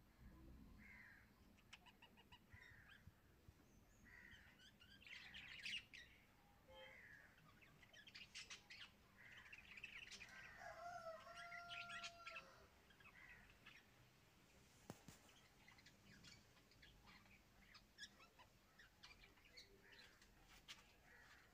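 Faint birds chirping and whistling in the background, with a few soft ticks of a knife cutting through eggplant onto a wooden chopping board.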